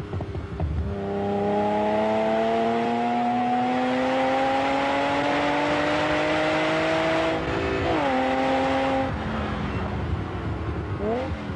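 Lamborghini Countach V12 engine pulling up through a gear, its pitch rising steadily for about six seconds. The pitch drops sharply at an upshift about eight seconds in, holds briefly, then eases off. Near the end it begins to climb again.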